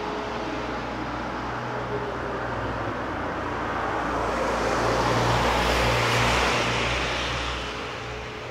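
A road vehicle passes close by: engine and tyre noise swell to a peak about five to six seconds in, then fade. A distant siren's faint steady tone lies underneath at the start and again near the end.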